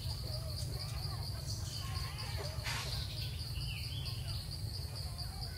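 Insects chirring steadily in one high, even trill over a low rumble, with faint short chirps and a brief burst of noise about two and a half seconds in.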